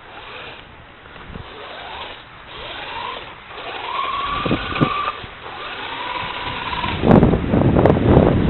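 Radio-controlled car's motor whining as it speeds up, its pitch rising a few seconds in and then holding. About seven seconds in, a louder rough rushing noise takes over as the car drives on the ice.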